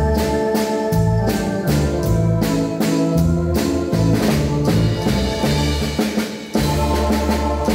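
Live band music: a waltz played on synthesizer keyboards over a steady drum beat, with a brief dip in loudness about six and a half seconds in.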